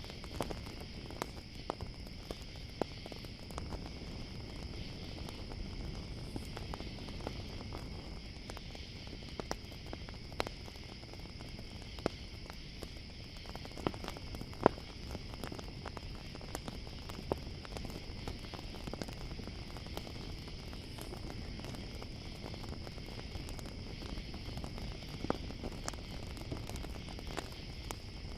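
Campfire crackling, with irregular snaps and pops, the sharpest about halfway through, over a low rush of burning. Crickets chirr steadily and high-pitched behind it.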